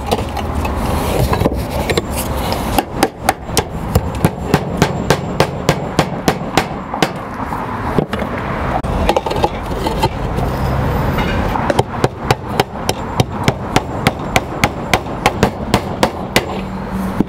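Hammer striking the edge of a flat roof tile again and again to chip it down to size, about three sharp blows a second, in two runs with a pause in the middle, over a steady background noise.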